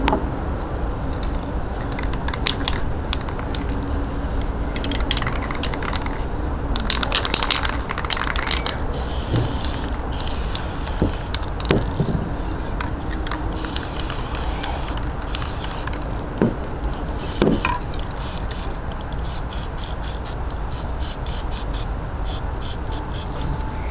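Aerosol spray paint can hissing in repeated bursts, several lasting a second or two, then a quick run of short squirts near the end, over a steady low rumble.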